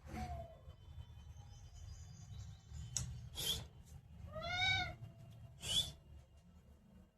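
Pet parrot calling: two short, shrill squawks, and between them a drawn-out, meow-like call that rises and then falls in pitch.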